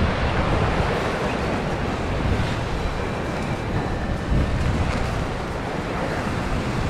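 Steady wind noise buffeting the microphone, over the rushing of sea and waves around a boat.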